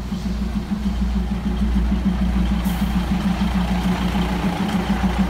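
Diesel engine of a State Railway of Thailand train running steadily, an even low throb with a deep hum underneath.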